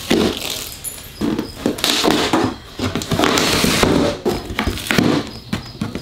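Cardboard shipping box being cut open with a hand blade: irregular scraping and tearing of tape and cardboard, with rustling and knocks as the box is handled.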